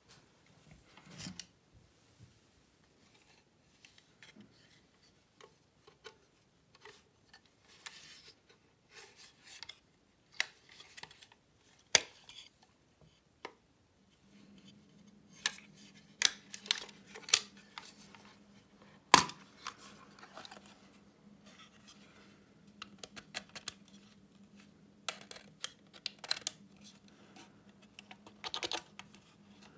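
Clicks, clacks and rattles of the hinged sheet-metal case of an old DAIMON railway signal lamp as it is opened and handled, with a sharp snap about twelve seconds in and a louder one about nineteen seconds in. From about halfway a faint steady low hum joins in.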